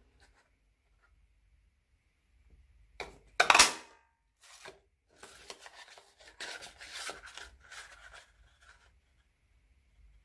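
Small Stampin' Up! daisy punch pressed through cardstock with a sharp clunk about three seconds in, followed by paper rustling and sliding as the sheet is shifted in the punch.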